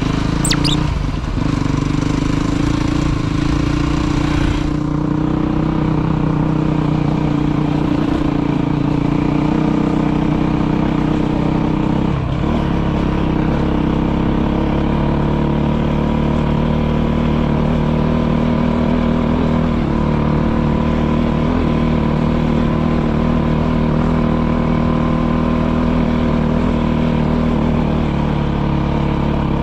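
Motorcycle engine running steadily under way, its note holding a nearly constant pitch. A hiss stops about four and a half seconds in.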